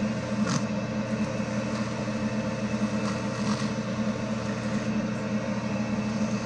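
Manual metal lathe running steadily with a stainless steel bar spinning in the chuck, a constant motor and gear hum, while 60-grit sandpaper is held against the turning work.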